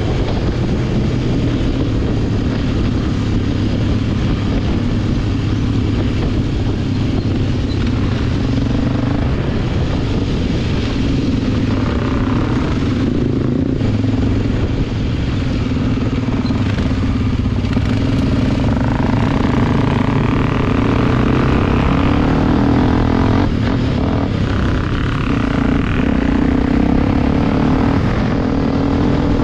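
Honda XR250 Tornado's single-cylinder four-stroke engine running under way on a trail ride, its pitch stepping up and down with throttle and gear changes.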